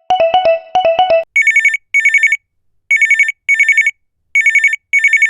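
A quick run of plucked musical notes for about a second, then a classic telephone ringing in double rings: three pairs of short, fast-trilling rings, each pair followed by a pause.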